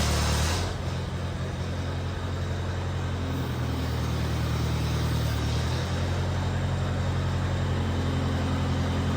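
Massey Ferguson Workbull 202 tractor engine running steadily, with a hiss that stops about half a second in. Its note shifts a little between about three and six seconds in.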